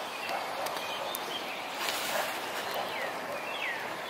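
A small bird giving short, falling whistled call notes, repeated every second or so, over the steady rush of creek water.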